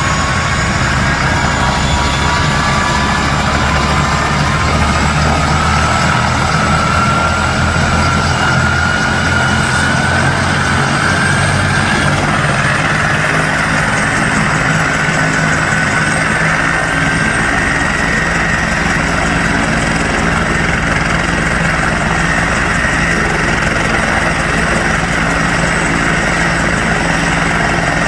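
Helicopter running on the ground with its rotor turning: a turbine whine rises in pitch over the first twelve seconds or so and then holds steady, over a constant low rumble.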